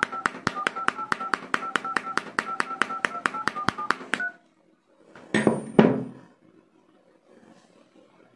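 Phone dialer keypad beeping in quick succession, about five two-tone key beeps a second, each with a hard tap as the touchscreen keys are struck with a hammer head; it stops about four seconds in. About a second later come two louder knocks.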